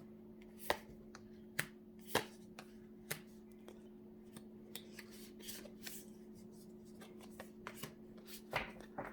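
A Light Seers Tarot deck being shuffled by hand: irregular snaps and clicks of cards, a few sharper ones in the first three seconds and again near the end, over a faint steady hum.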